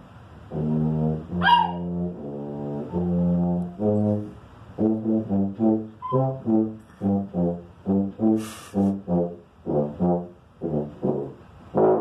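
Tuba playing a tune: a few held low notes, then a quick run of short, detached notes from about five seconds in. A small dog gives one brief howl about a second and a half in.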